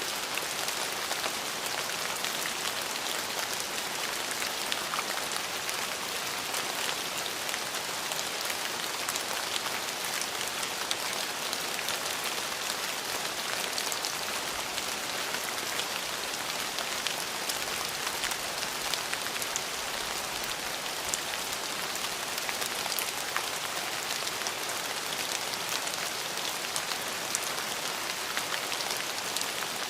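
Steady rain falling, an even hiss dotted with the small ticks of individual drops hitting a surface.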